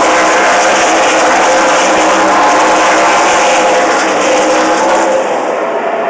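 NASCAR Cup stock cars' V8 engines running at race speed as the cars pass, a loud steady drone of several engines at once that eases slightly about five seconds in.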